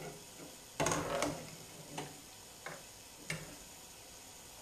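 Metal ladle knocking and scraping against a cooking pot as liquid is scooped out. There is a short clatter about a second in, then three lighter single taps.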